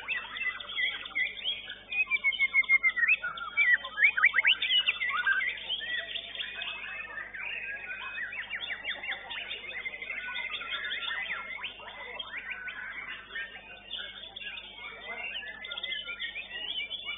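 White-rumped shama (murai batu) song: a dense, varied stream of whistles, chirps and quick rising sweeps. It is loudest in a run of fast repeated notes from about two to six seconds in.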